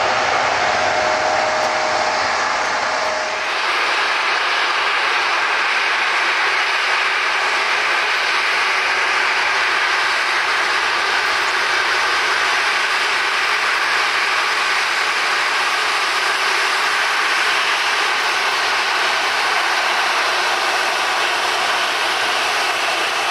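Airliner jet engines running at high power near a runway threshold: a steady rush with faint whining tones. About three seconds in, the sound changes abruptly, losing its low rumble and its lower tone.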